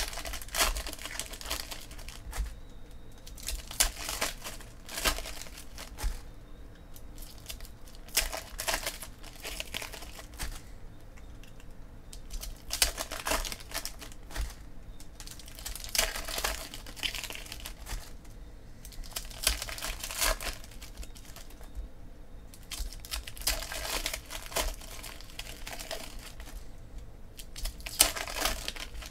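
Foil trading-card pack wrappers crinkling and tearing as they are opened by hand, in short rustling bursts every few seconds.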